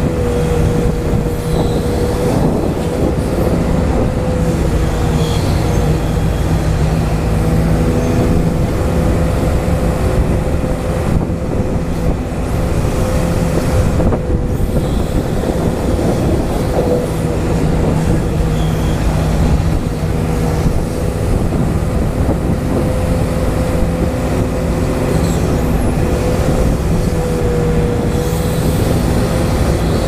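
Hydraulic pump of a Huina 580 RC hydraulic excavator running with a steady mechanical whine and rumble, the pitch dipping briefly a few times as the arm and bucket dig under load.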